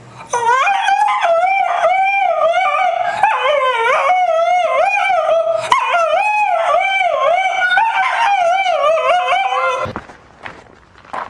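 A dog howling in one long, wavering howl whose pitch swoops up and down over and over. It stops abruptly about ten seconds in.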